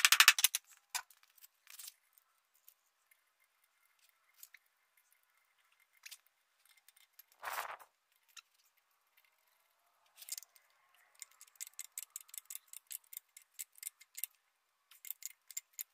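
Small metal clicks and taps as wheel weights are bolted onto a garden tractor's rear wheel: the last taps of a hatchet head at the very start, then scattered clicks and a short louder scrape about seven and a half seconds in. From about ten seconds in comes a fast run of small clicks as the carriage-bolt nuts are tightened.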